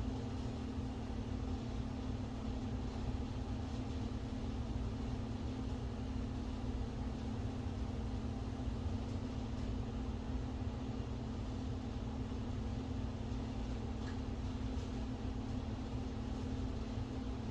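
Steady low hum over an even hiss, unchanging throughout: room background noise such as air conditioning.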